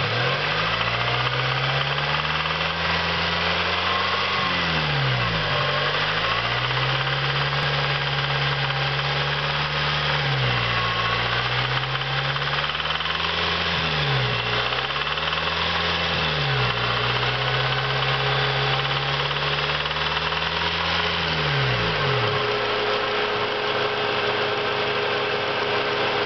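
Acura RSX's K20 four-cylinder engine running with a knock from the bottom end, its pitch dipping and rising several times. The noise sounds like valvetrain ticking, but it comes from a spun rod bearing.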